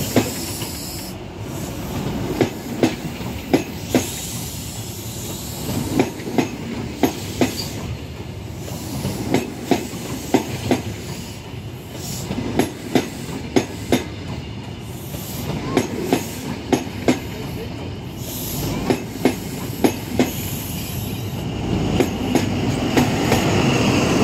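Passing Pullman train coaches, their wheelsets clicking over rail joints in quick pairs over a steady rolling rumble. Near the end the sound grows louder as the rear HST (Class 43) power car draws level.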